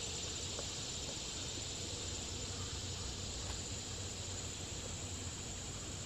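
Steady, high-pitched insect chorus, unchanging and fairly quiet.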